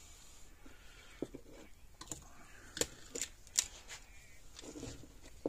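Wire and small hand tools being handled for making capacitor leads: light rustling and a handful of sharp clicks, the loudest right at the end.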